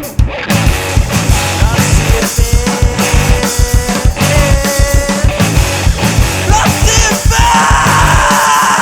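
Math-rock band playing live: drums hitting hard under busy interlocking melodic lines. Near the end, a sustained high note rings over the drums.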